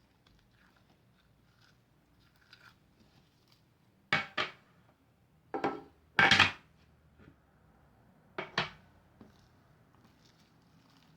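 Objects being handled and set down on a tabletop: a few short clatters and knocks, two about four seconds in, a longer loudest one about six seconds in and two more about eight and a half seconds in, with faint small clicks between.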